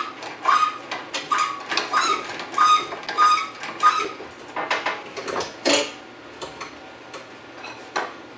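Metal-on-metal clinks with short squeaks, about one every half second for the first few seconds, then a few louder scattered knocks. The sound comes from work at the engine hoist and the car's front end as an engine on the hoist chain is set into the engine bay.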